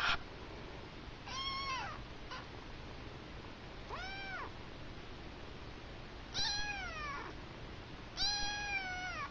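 Siamese kitten meowing four times, high-pitched mews a couple of seconds apart; the later two are longer and trail down in pitch.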